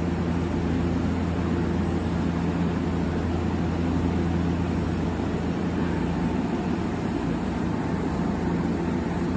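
Steady low hum of a Sanyo Electric Railway train standing at the platform, its onboard equipment running without a break; a faint higher tone joins in about six seconds in.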